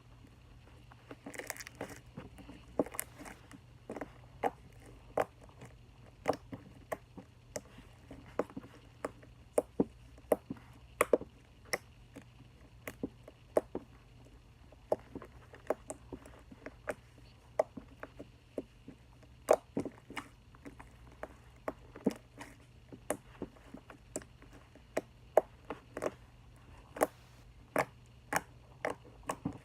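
Slime being squeezed and poked by hand, making sharp, irregular clicking pops from trapped air bubbles, about one to three a second and coming faster near the end.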